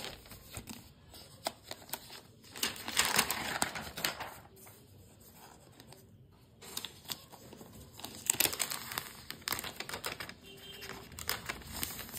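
Crinkling and rustling of the protective wrap as it is handled and peeled off a new MacBook Pro's lid. It comes in irregular bursts, louder about three seconds in and again about eight seconds in.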